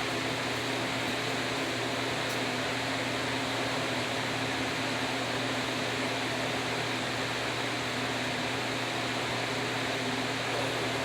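A fan running steadily: an even whirring hiss over a low, constant hum.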